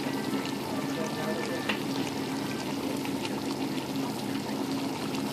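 Food frying in a pan: a steady sizzle with scattered sharper pops, over a low steady hum.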